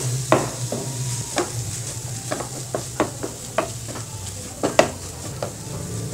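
Wooden spatula stirring and scraping chopped long beans with ground coconut in a nonstick frying pan, with irregular knocks of the spatula against the pan over a light sizzle. A low steady hum runs underneath.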